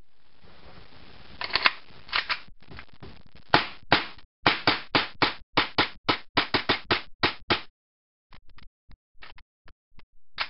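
Gas blowback airsoft pistol (STI Tactical by KWA, metal slide) firing about twenty shots in quick succession, each a sharp crack of the slide cycling, with a steady hiss underneath at first. Lighter clicks follow near the end.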